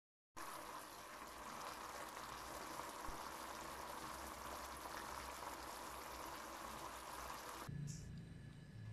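Chicken tapa bubbling and sizzling in a thick, syrupy sauce in a frying pan as the sauce boils down to a glaze. The sound stops abruptly near the end.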